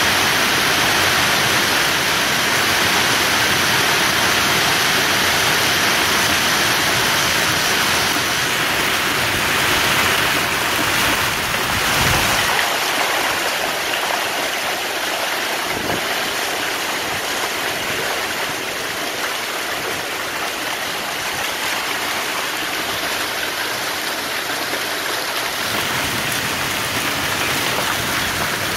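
Hail and heavy rain pelting a paved street, a dense steady hiss of impacts mixed with the rush of runoff water. It gets a little quieter from about halfway through.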